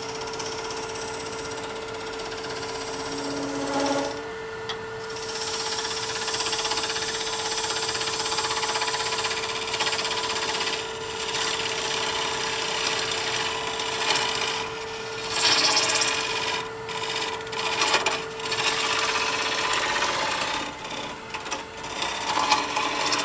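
Wood lathe running with a steady motor whine while abrasive is held against the spinning workpiece during sanding, giving a hiss that swells and dips.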